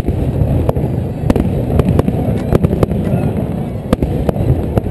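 Aerial fireworks shells bursting: a rapid, irregular series of sharp bangs and pops over a continuous low rumble.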